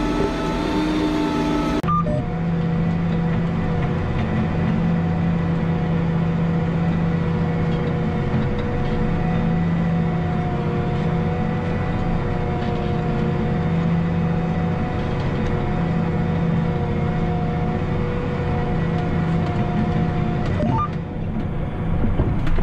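John Deere 8320R tractor's six-cylinder diesel engine running steadily under load while pulling a disk: a constant drone with several steady tones. The tones shift abruptly about two seconds in.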